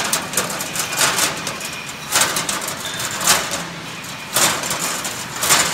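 Single-wire chain link fence machine weaving wire mesh: a steady machine noise with a short rush of noise about once a second, in an even working rhythm.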